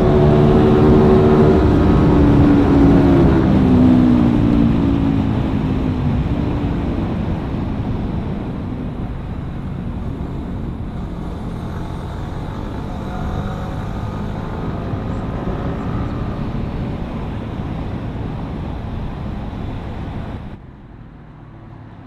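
Yamaha R15 V3 motorcycle riding, its engine and the wind heard together: the engine note falls over the first few seconds as the bike slows, then settles into a steady rush of wind and engine that slowly quietens. The sound drops off suddenly about twenty seconds in.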